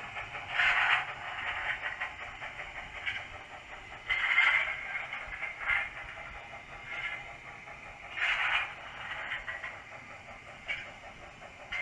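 Sound decoder in a 00 gauge Bachmann Austerity 2-8-0 model playing slow steam-locomotive chuffs through its small speaker, a beat about every second and a half with some stronger than others, over light clatter of the model and its wagons on the track.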